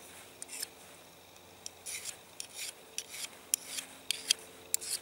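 Steel blade of a Frost 162 hook knife scraped against a Victorinox Dual sharpener while being resharpened: a string of short, high scraping strokes with irregular pauses between them.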